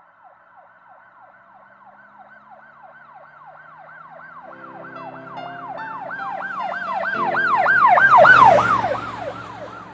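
Emergency vehicle siren in a fast yelp, its pitch rising and falling about three times a second, growing louder to a peak near the end and then fading. A low steady engine hum comes in about halfway through.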